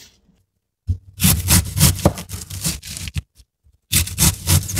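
Chef's knife slicing through a head of green cabbage on a plastic cutting board: crisp crunching cuts with the blade scraping the board. The cutting starts about a second in, stops briefly about three seconds in, then picks up again.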